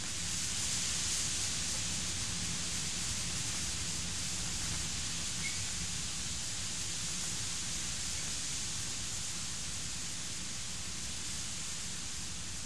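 Steady hiss of a thunderstorm's heavy rain and wind, swelling slightly about a second in.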